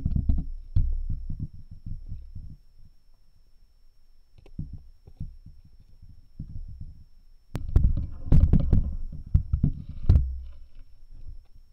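Muffled underwater thumps and rumbling, picked up through an action camera's housing under the ice, as a hooked northern pike thrashes on the line. A busy stretch at the start and a louder one from about seven and a half to ten seconds in, with a few sharp knocks, a quieter spell between them, and a faint steady high whine throughout.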